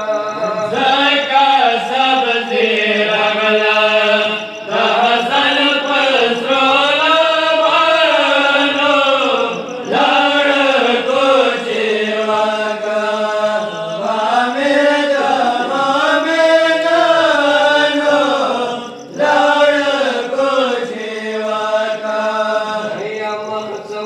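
A voice chanting a Pashto noha, a Shia mourning lament, in long melodic phrases with short breaths between them and no instruments or beat.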